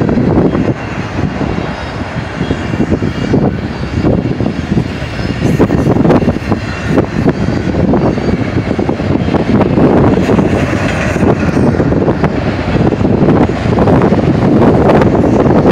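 A fast freight train's cars passing close by: a loud, continuous rumble and rattle of steel wheels on rail, with frequent sharp clicks and clanks. Double-stack container well cars give way to autorack cars.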